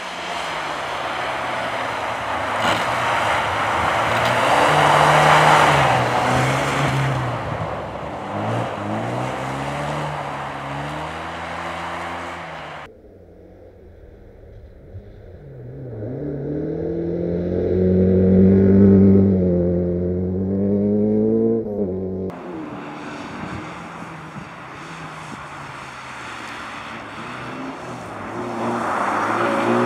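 Historic rally cars driving hard on a snow-covered track, engines revving up and falling back again and again through gear changes and corners as they pass. For several seconds around the middle the sound turns muffled, leaving only the engine note.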